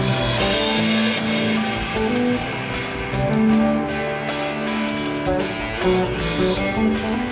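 Instrumental intro of a pop-rock song: a guitar melody over the band, with a drum kit played along, sticks hitting drums and cymbals in a steady beat.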